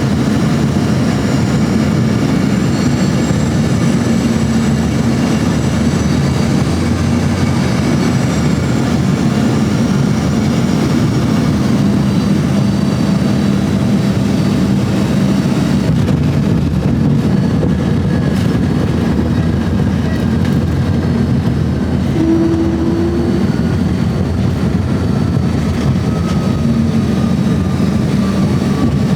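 Engines of an Embraer regional jet heard from inside the cabin: a steady low rumble with faint high whines that slowly fall in pitch. A short tone sounds briefly about two-thirds of the way through.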